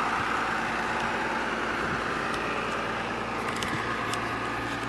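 Tractor engine running steadily, with a few light ticks in the second half.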